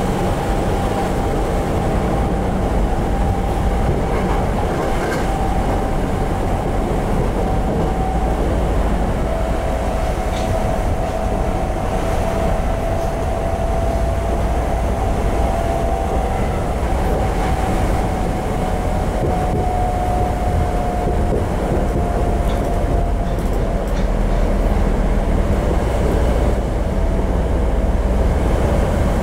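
Tokyo Metro 02 series subway car with Toshiba IGBT-VVVF traction control, heard from inside the car as it runs steadily between stations. There is a continuous rumble of wheels and running gear, a steady whine that wavers slightly in pitch, and a few light clicks.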